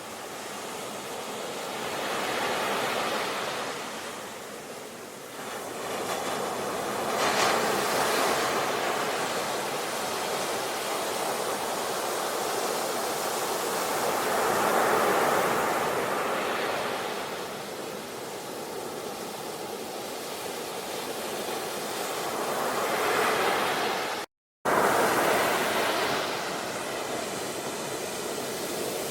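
Ocean surf: waves breaking and washing ashore, swelling and fading every few seconds. About 24 seconds in, the sound cuts out completely for a split second, then resumes.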